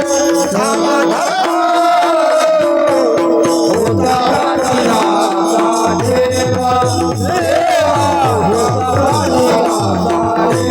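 Kirtan accompaniment with no words: a melody over a held drone note and a steady beat of small hand cymbals. Low mrudang drum strokes drop out early on and come back in about halfway through.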